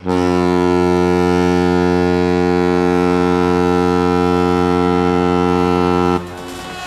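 BIK Karlskoga's ice hockey goal horn sounding one long, steady blast. It cuts off about six seconds in.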